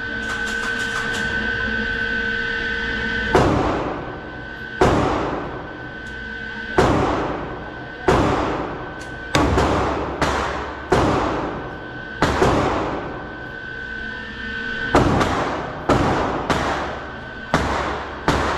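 A 9mm semi-automatic pistol fired about fifteen times in a steady string at an indoor range. The first shot comes about three seconds in, then roughly one shot a second, each with a reverberant tail off the range walls.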